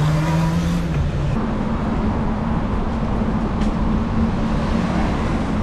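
Steady wind and road noise on a handlebar-mounted camera while riding a bicycle alongside traffic, with a steady engine hum that steps up in pitch about a second and a half in.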